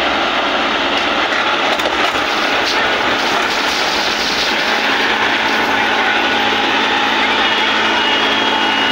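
John Deere 5210 and Mahindra 555 tractors' diesel engines running hard under heavy load as they pull against each other. A loud, steady din that does not let up.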